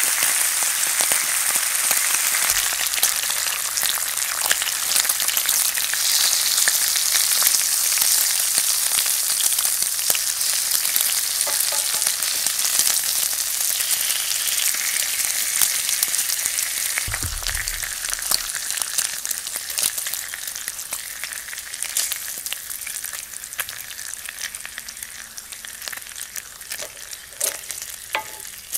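Bacon strips sizzling and crackling in a hot frying pan, a dense hiss full of small pops that grows gradually quieter over the second half. A brief low thump comes about halfway through.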